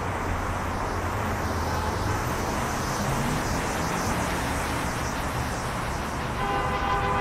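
Steady freeway traffic noise: cars and a bus passing on the 110 freeway, with a low engine hum under it, heard from beneath a concrete overpass. A short steady tone joins near the end.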